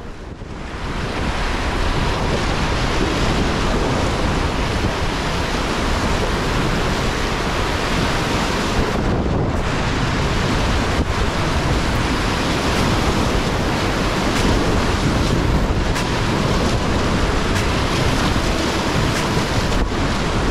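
Creek whitewater rushing steadily around a raft running rapids, with wind buffeting the microphone.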